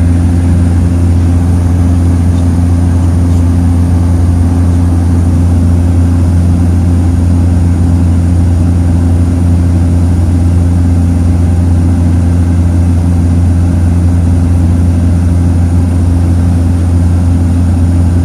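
Bush plane's piston engine and propeller running at a steady, unchanging pitch, a loud continuous drone.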